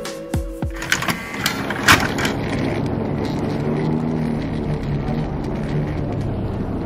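Steady low mechanical drone and rumble of airport boarding-bridge ambience, with a few clicks and knocks in the first two seconds.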